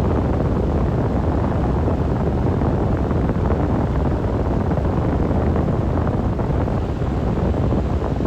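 Strong blizzard wind blowing hard, a loud, steady, deep rushing noise.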